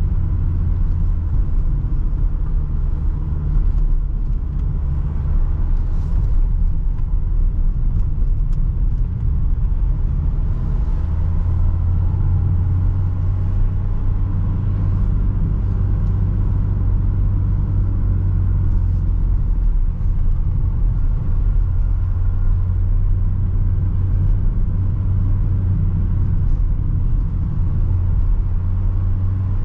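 Renault Trafic van heard from inside the cab while driving: a steady low rumble of engine and road noise.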